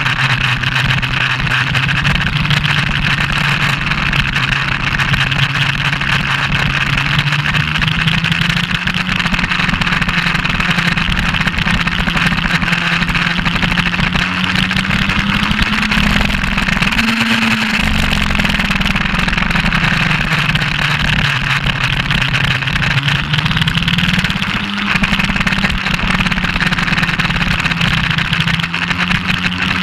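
Suzuki GS1200SS's inline-four engine racing on track, heard from on the bike: its pitch climbs slowly under throttle, drops back briefly about 17, 23 and 29 seconds in, then climbs again. Wind rushes over the camera throughout.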